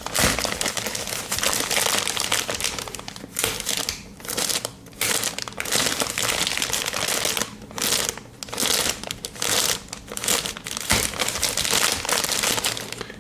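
A folded courier mailing bag being handled and unfolded, crinkling and rustling on and off with short pauses.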